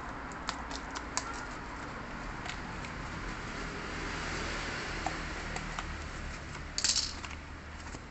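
Parcel packaging being handled during an unboxing: scattered light clicks and rustling over a steady background hiss, with a short louder rustling burst about seven seconds in.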